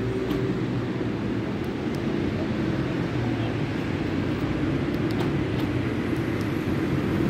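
Steady low hum of a vehicle engine running, with a few faint clicks over it.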